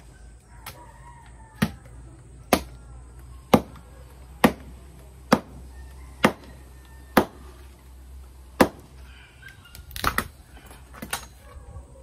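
Machete (bolo knife) chopping and splitting pieces of wood: sharp chops about once a second, then a quick flurry of several strikes near the end.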